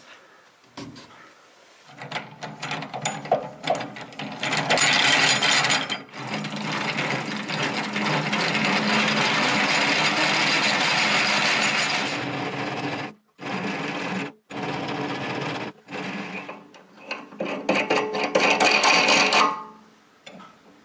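Vevor MX-S716G mini metal lathe running under power, driving its carriage through the change gears to cut a thread: a steady machine hum with several pitches. It starts about two seconds in, drops out briefly a few times, and stops shortly before the end.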